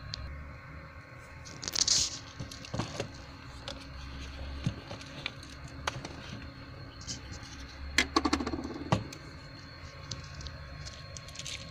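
Clicks, scrapes and clatter of cookware being handled at a portable gas stove, with a short hiss about two seconds in and a rattling clatter about eight seconds in.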